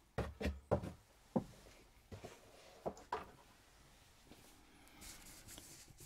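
Soft handling noises from the keyboard's box and packing: a quick cluster of knocks and taps in the first second and a half, a few more light taps two to three seconds in, and a faint rustle near the end.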